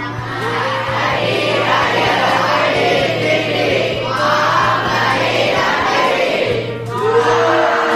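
A large crowd of students' voices sounding together in a big hall, like a choir, over background music; near the end clearer held sung notes come in.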